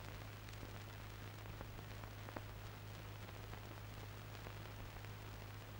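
Faint steady hiss and a low hum with a few soft ticks: the background noise of an old film soundtrack.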